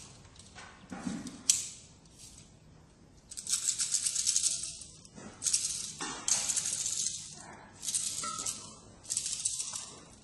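Repeated bursts of rustling and scuffing, each about a second long, from a player moving about indoors: clothing brushing and shoes scuffing on the floor, starting about three seconds in.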